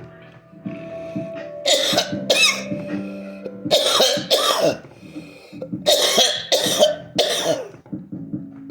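A person's coughing fit from inhaling smoke: six harsh coughs in three pairs, a pair about every two seconds, with music playing underneath.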